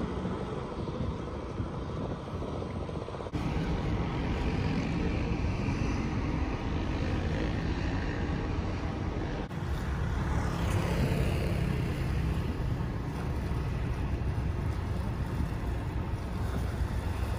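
Low, steady rumble of a large motor yacht's engines and churned water as it manoeuvres slowly, mixed with wind on the microphone.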